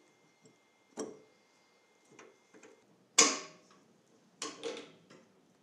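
Metal clicks and clinks of a spanner and oil-line fittings being worked at a motorcycle's oil pump: a few light taps, one sharp ringing clink about three seconds in, and two more a second later.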